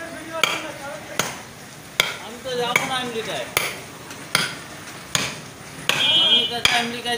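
Heavy butcher's cleaver chopping through a leg of mutton into a wooden chopping block, striking hard and evenly, a little faster than once a second, about nine blows. Voices murmur in the background.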